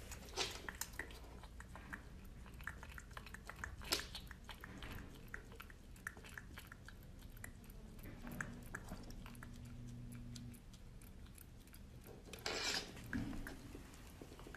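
Mini piglet chewing and smacking its mouth, with many small clicks. Near the end it gives one short, louder call.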